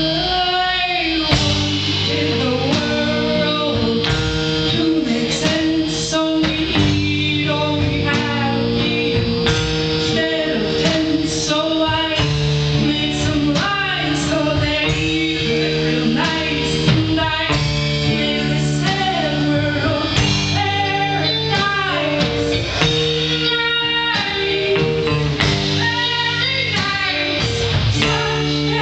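Live band music: a song sung over guitar and other instruments, with sustained held notes under the melody.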